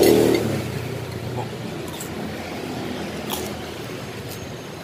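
Street traffic: a passing motor vehicle's engine fades out about a second in, leaving a steady hum of traffic with a few light clicks.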